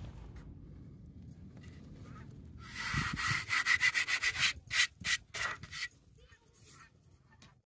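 A hand rubbing across a plywood board, smearing the soot left by burnt black powder. About three seconds in comes a quick run of scratchy rubbing strokes lasting some three seconds, then a few separate wipes, and the rubbing fades out.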